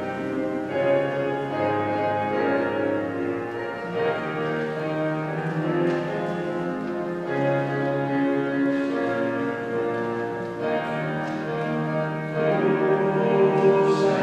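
Slow, meditative instrumental music of a Taizé prayer: long held notes overlapping in chords, getting louder about two seconds before the end.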